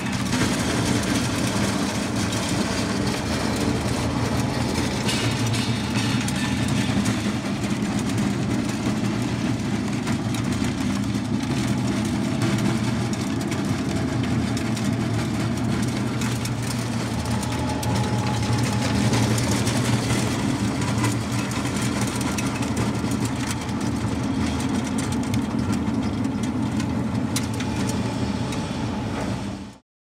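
Ring die feed pellet mill running steadily as it presses feed into pellets, a continuous mechanical hum with a strong low tone; it cuts off suddenly near the end.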